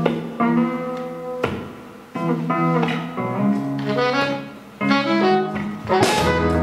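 Live band playing an instrumental passage on electric guitars, bass and keyboard: chords struck about once every second or so and left to ring and fade. The drum kit comes in near the end.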